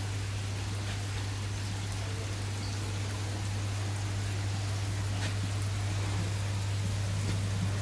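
Steady splashing and bubbling of water circulating in a large aquarium, over a steady low electrical hum.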